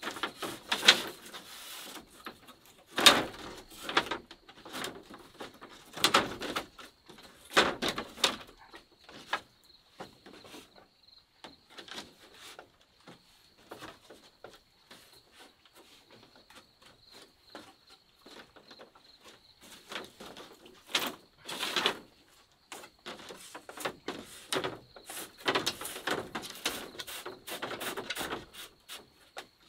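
Thin bamboo strips being laid out and shifted across a bamboo-slat floor: irregular light clicks, taps and rattles of bamboo on bamboo, with a few louder clatters.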